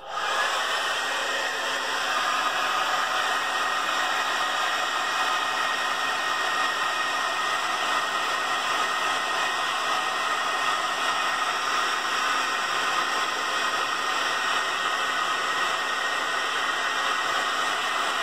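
Handheld hair dryer switching on and running steadily: an even rush of blowing air with a faint steady whine.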